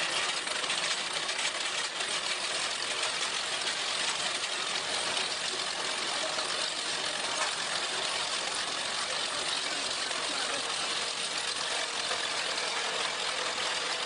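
Steady machine noise from a ditch-digging (trenching) machine running, heard mostly as an even hiss with little low rumble.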